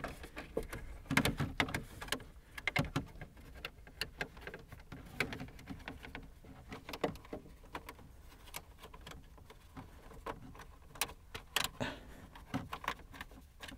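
Faint, irregular clicks and light scrapes of a 7 mm socket on a screwdriver-style driver turning a bolt out of plastic dash trim.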